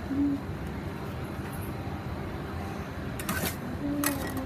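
Metal ice cream scoop and steel spatula scraping and clinking on a stainless-steel cold plate, with a couple of sharp scrapes about three seconds in and near the end. A steady hum runs underneath.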